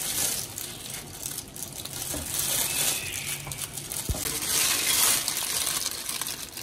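Disposable plastic food-prep gloves crinkling and a knife cutting through ripe mango flesh, a soft scratchy rustle, with one low knock about four seconds in.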